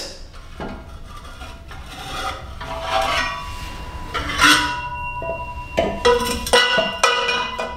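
Metal exhaust pipe sections and U-bends being handled and set against each other, giving a few clinks and knocks that ring briefly. The loudest comes about four and a half seconds in, and a quick cluster follows near the end.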